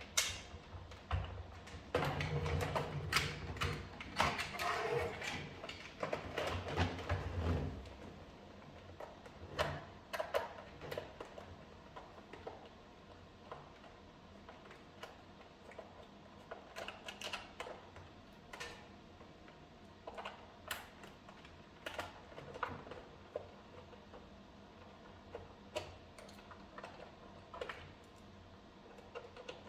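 Light clicks, rattles and scraping of hard plastic parts and small tools being handled while a cordless vacuum cleaner is taken apart. There is a busier stretch of rubbing and rattling in the first few seconds, then scattered single clicks.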